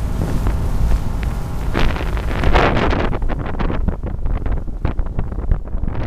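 Wind buffeting the microphone on a small boat under way, over the rush and splash of choppy water along the hull; a louder surge of wind and spray about two seconds in, then short crackling splashes.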